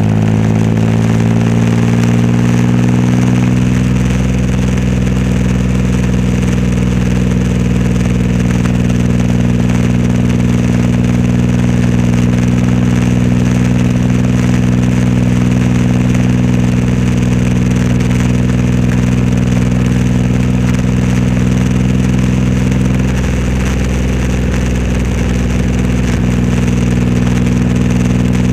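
Triumph Rocket 3 Roadster's big inline-triple engine running through a custom exhaust while riding. The note falls over the first few seconds as the revs drop, then holds a steady cruising drone.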